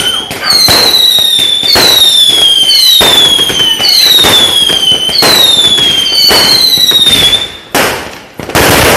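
Fireworks going off: six loud whistles one after another, each sliding slightly downward in pitch for about a second, over continuous crackling. Near the end the whistling stops and sharp bangs follow.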